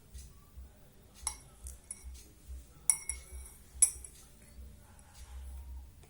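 A spoon clinking against a drinking glass while an ingredient is spooned in: several sharp, ringing clinks, the two loudest about three and four seconds in.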